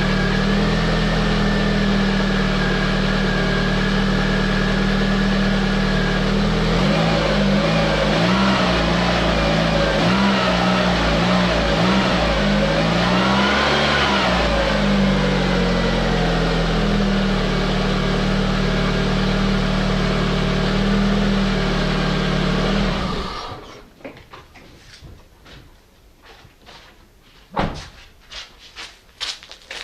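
Lada Priora's 1.6-litre 16-valve engine idling warm, its cold-start whistle from the timing-belt area now gone. A thin steady high tone stops about six seconds in, then the engine is revved up and back down over several seconds and settles to idle again. The engine sound cuts off about 23 seconds in, leaving a few faint clicks.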